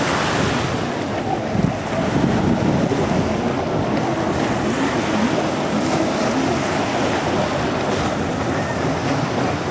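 Racing stand-up jet ski engines running at speed across open water, with wind buffeting the microphone.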